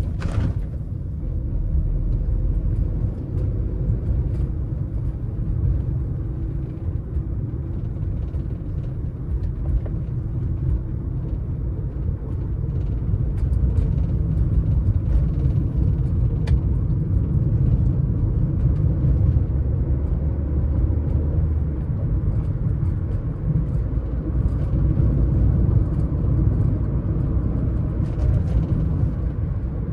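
Car driving along at a steady pace: a continuous low rumble of tyres on the road and the engine, with a brief knock right at the start.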